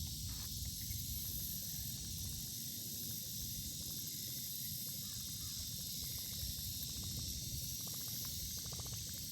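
Steady outdoor hiss with a low rumble underneath, and a quick run of rapid ticking near the end.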